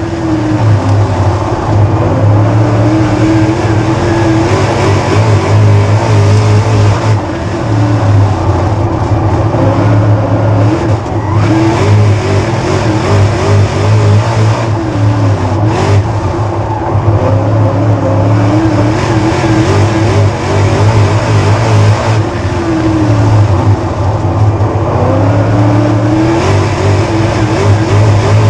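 Dirt late model's GM 604 crate small-block V8 at full race pace, heard from inside the cockpit. The engine note drops as the driver lifts for each corner and climbs again down each straight, about every five seconds, lap after lap.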